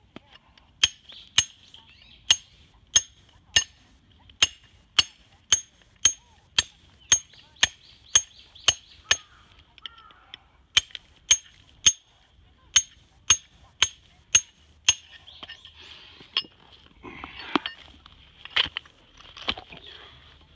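Hammer striking a raw Japanese natural whetstone (Okudo suita stone) in steady, even blows, about one and a half a second, each ringing brightly. The stone is being dressed, split along its weakly bonded layers, with its ring used to judge soundness. After about 15 seconds the regular blows stop, giving way to irregular knocks and the scrape of stone pieces being handled.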